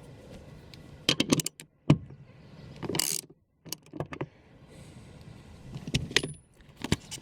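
Tools and parts being handled during car repair work: a scattered series of sharp clicks and knocks, with a short scraping rustle about three seconds in.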